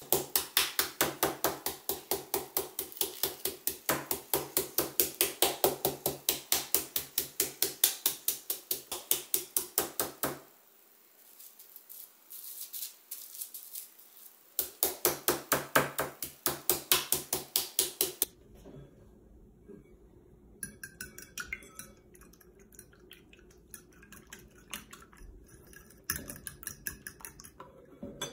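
Meat mallet pounding chicken breast flat: quick, regular blows at about four to five a second, one run of about ten seconds, then after a short pause another of a few seconds. Quieter scattered light clicks and rustling follow.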